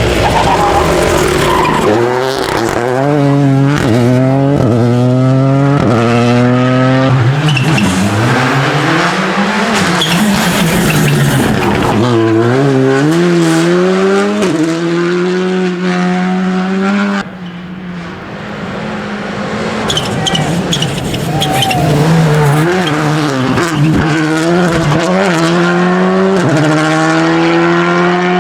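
Rally car engine driven hard: the revs climb and drop again and again as it shifts up through the gears, easing off briefly about two-thirds of the way through, then revving up again.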